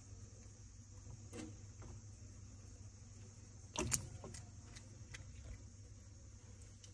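Tokay gecko lunging at a worm held out on a wooden stick: one sharp knock and scuffle about four seconds in, followed by a few faint clicks, over a low steady hum.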